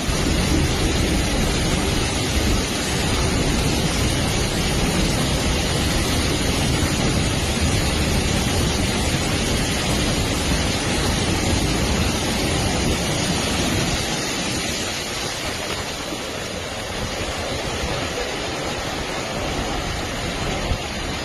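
Steady rushing of water from heavy rain and floodwater, with a deep rumble that eases about fourteen seconds in.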